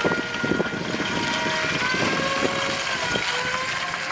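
A machine's motor running with a whine that drifts slowly up and down in pitch, with scattered knocks and clatter.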